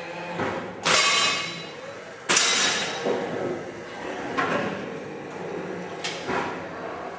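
Break-barrel air rifle handled and worked: two loud, sharp metallic clacks about a second and a half apart, each with a short ringing tail, followed by a few lighter clicks.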